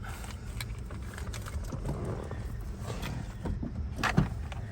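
1996 Honda Civic hatchback's four-cylinder engine idling with a steady low rumble, with a few sharp clicks and a knock near the end.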